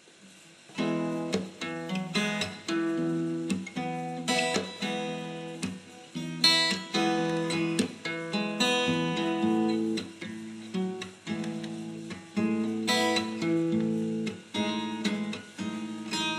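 Acoustic guitar playing an instrumental intro: a run of picked and strummed chords with sharp attacks and ringing notes, coming in about half a second in.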